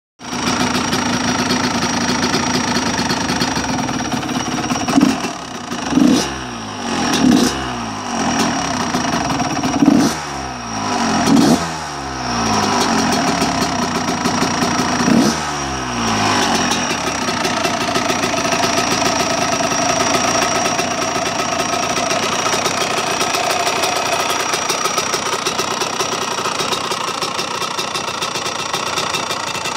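Engine with a new piston and water pump, after only a couple of warm-ups, idling with a strange noise that the owner doubts is normal. The throttle is blipped about six times in the middle, the revs rising and dropping back each time, then it settles to a steady idle.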